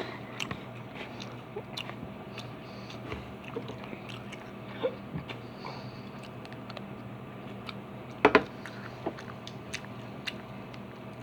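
A person eating close to the microphone: chewing with scattered small clicks and taps, and a louder pair of clicks about eight seconds in.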